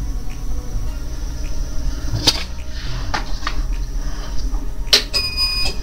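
Low steady electrical hum with a few scattered clicks, then a short electronic beep near the end, from the heat press's controller while the press stands closed on the transfer.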